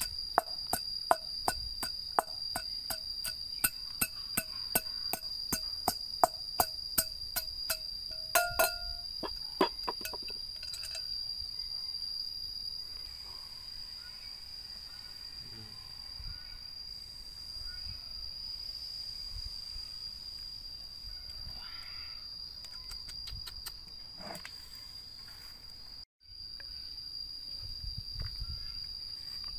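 A steady high-pitched insect drone, with rhythmic knocking during roughly the first ten seconds, about two to three strikes a second, as of food being chopped or pounded.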